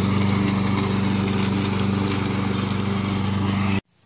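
Walk-behind gasoline lawn mower engine running steadily at speed with a fast, even pulse, cutting off abruptly near the end.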